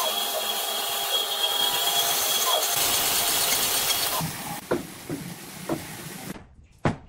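Electric power tool working wood, running steadily and then stopping about four seconds in. A few light wooden knocks follow, with a sharp knock near the end.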